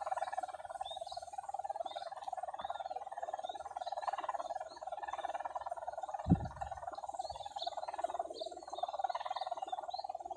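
Steady buzzing drone of a flying kite's hummer (sendaren) vibrating in the wind, with short high chirps over it and a single low thump about six seconds in.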